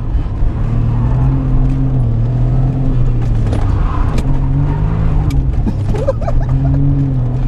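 Suzuki Cappuccino's turbocharged 657cc three-cylinder engine running under load as the car slides on a wet track, its pitch rising and falling a few times as the throttle is worked, with a few sharp clicks.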